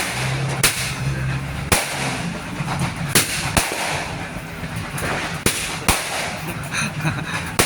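A 100-shot thunder fireworks cake firing: sharp bangs at uneven gaps, about eight in all, a second or so apart.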